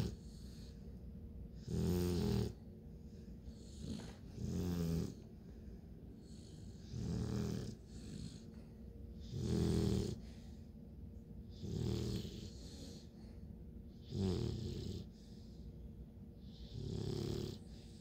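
Bluetick Coonhound puppy snoring in deep sleep, a rasping snore on each breath about every two and a half seconds.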